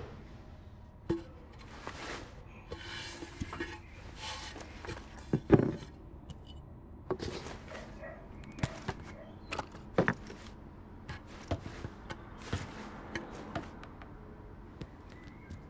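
Irregular knocks, taps and scraping as cast clay pieces and a trimming knife are handled on a workbench. The loudest is a knock about five and a half seconds in.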